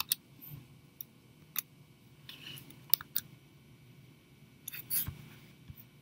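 Computer keyboard and mouse clicks: a handful of separate sharp taps spread over a few seconds, with a quick cluster of them near the end.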